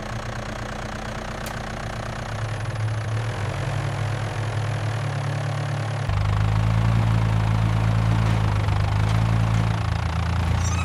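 Tractor engine idling with a steady low hum, stepping up louder about six seconds in.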